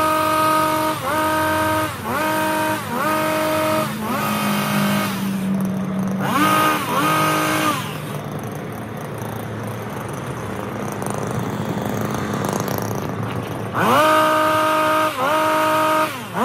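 Stihl HS 82T two-stroke petrol hedge trimmer sped up to double speed, its engine revving up and easing off in quick repeated cycles as the blades cut. About halfway through it drops back to a low idle for several seconds, then revs hard again near the end.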